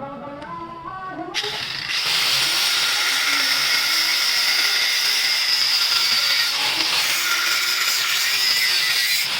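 Angle grinder cutting through a car's exhaust pipe to remove the catalytic converter. It winds up with a short rising whine, then runs loud and steady from about two seconds in.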